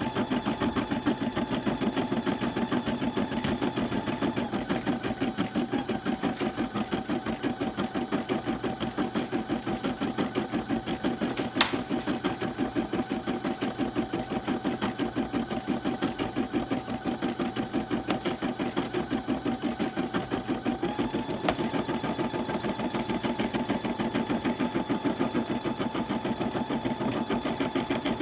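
Brother embroidery machine stitching at a rapid, even rate, its hum dropping slightly in pitch about four seconds in and rising back about three-quarters of the way through. A single sharp click near the middle.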